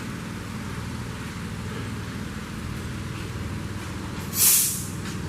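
Steady low mechanical hum, with a short burst of hiss a little over four seconds in.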